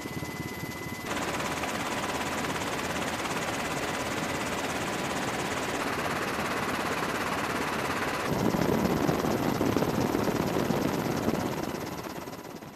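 Steady rushing noise of a helicopter in flight. It changes abruptly about one, six and eight seconds in, is louder and deeper from about eight seconds, and fades out at the end.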